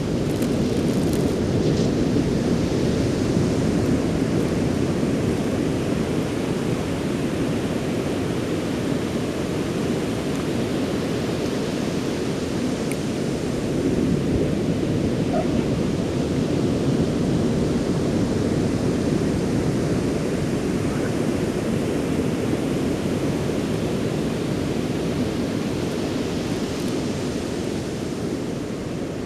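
Ocean surf breaking on a beach: a steady, deep wash of waves that swells and eases every several seconds.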